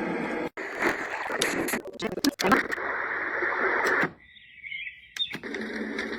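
Color Noise sound machine's small speaker playing its soothing sounds while the sound is switched, so the playback cuts off and changes abruptly several times. It runs from a steady rushing noise, through a quieter stretch with a thin high tone, to a new sound with steady tones about five seconds in.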